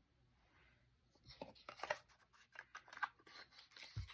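Faint, irregular scratching and clicking of small handling noises, starting about a second in.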